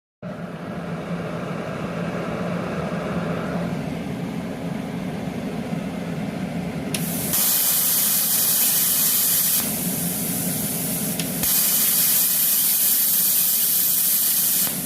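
Everlast 256Si multiprocess machine's plasma cutter: the machine hums, then the torch fires twice, each time a sharp click followed by a loud steady hiss with a high whine, about two and a half and then three and a half seconds long. The pilot arc is striking with the point gap set to about .030 inch.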